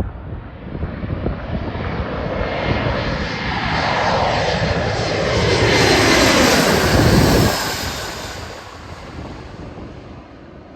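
JAL jet airliner passing low overhead on its landing approach: its engine noise builds steadily, is loudest about seven seconds in with the pitch sweeping down as it passes over, then drops away and fades. Strong gusty wind buffets the microphone at the start.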